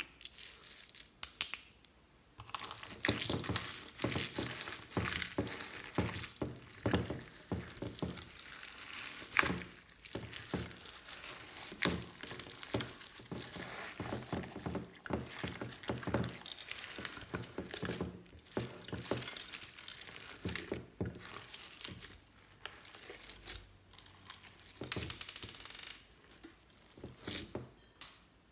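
Slime being squished and stretched by hand, with a dense, irregular run of sticky crackles and small pops that pause briefly near the start.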